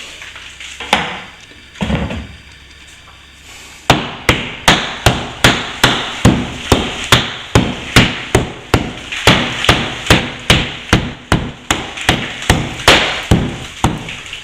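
Hammer striking in quick, steady blows, about two or three a second, starting about four seconds in after a few scattered knocks: plaster being knocked out along a crack to open it up for repair.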